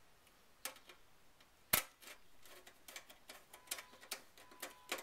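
Light, irregular metallic clicks and ticks from screws being driven with a screwdriver into the sheet-metal chassis under an optical drive, with one sharper click a little under two seconds in.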